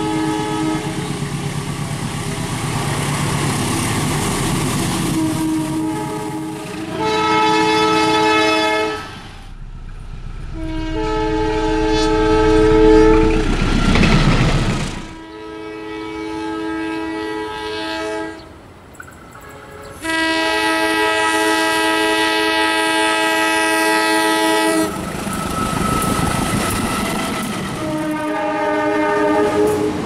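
Indonesian diesel locomotive horns (Semboyan 35) sounding a series of chime blasts, several notes at once, each lasting a few seconds; the longest, about five seconds, comes near the end. Under them runs the rumble and wheel clatter of a passing train.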